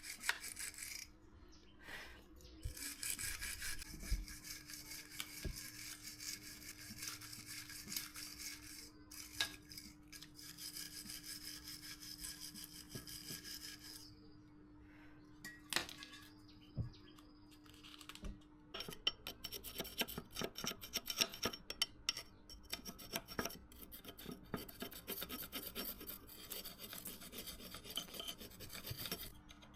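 Hand-tool work scraping and rubbing on a workpiece in repeated strokes, like filing or sawing. From about 19 seconds the strokes turn into a quick, busy run of clicks and scrapes, with a few sharp knocks shortly before.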